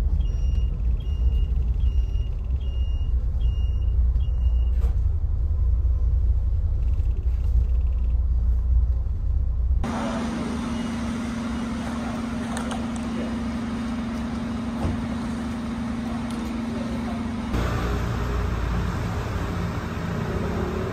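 Low engine and road rumble heard from inside a moving coach, with a high electronic beep repeating about every half second that stops about five seconds in. About ten seconds in, the sound switches to a steady hum beside the parked coach. About three-quarters of the way through, low rumble and street noise return.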